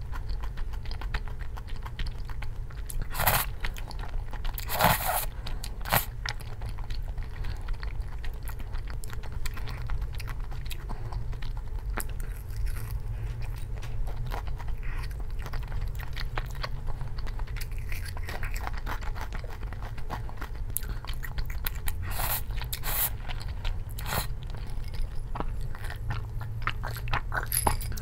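A person chewing and crunching food close to the microphone, with a few sharper crunchy bites, a cluster about three to six seconds in and another near the end, over a steady low hum.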